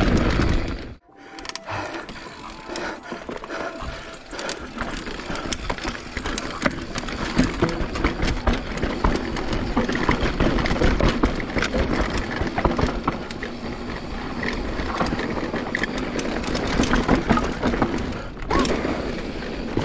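Giant Trance 27.5 full-suspension mountain bike rolling down a rough dirt trail: tyre noise on dirt and rock with a steady clatter of chain and frame rattle and many small knocks. There is a burst of wind on the microphone at the start, and the sound drops out briefly about a second in and again near the end.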